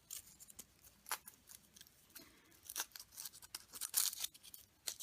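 Foil wrapper of a chocolate surprise egg crinkling as it is handled and peeled by hand: scattered sharp crackles that grow denser near the end.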